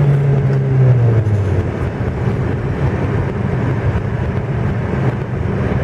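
VAZ 1.6-litre eight-valve engine, fitted with a 56 mm throttle body, heard from inside the car at speed. Its note falls in pitch over the first second and a half as the revs drop after a hard run to 100 km/h in third gear, then it runs steadily under dense road and tyre noise.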